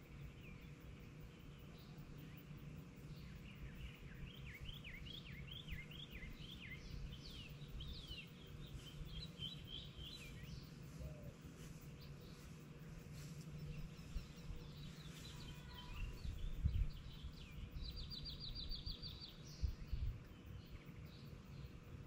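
Birds chirping, with a quick trill near the end, over a faint low outdoor rumble; a couple of low thumps come late. The heat pump's outdoor unit is shut down and silent, its condenser fan stopped.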